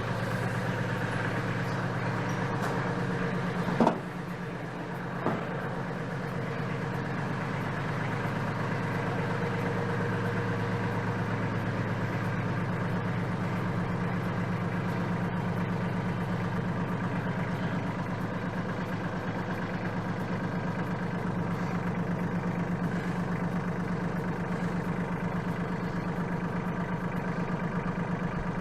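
Mahindra 1526 tractor's three-cylinder diesel engine running steadily at idle. Two sharp knocks stand out, the first about four seconds in and a lighter one about a second and a half later.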